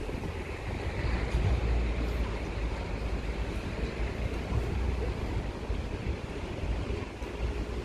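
Wind buffeting the microphone, an uneven low rumble, over a steady outdoor background hiss.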